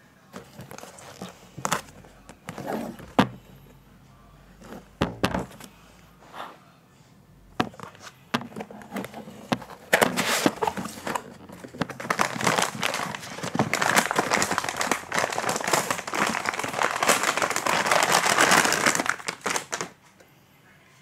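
Cardboard retail box of a Gigabyte GTX 1650 Super graphics card being handled and opened by hand. There are scattered knocks and scrapes at first, then a long dense stretch of scraping and rustling in the second half that stops suddenly near the end.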